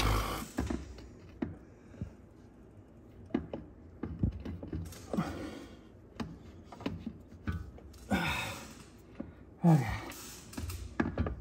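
Light metallic clicks and knocks as a clutch pressure plate and disc are shifted and rocked against the flywheel while hunting for the hidden locating pin. Several heavy breaths of effort come in between, and a low grunt near the end is the loudest sound.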